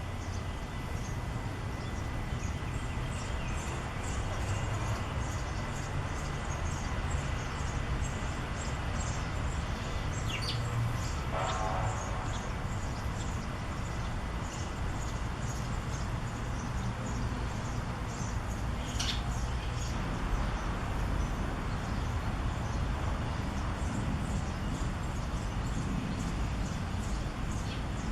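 Eurasian tree sparrow nestlings giving rapid, continuous high-pitched begging chirps from the nest, with a few louder calls standing out about a third and two-thirds of the way through. A steady low rumble runs underneath.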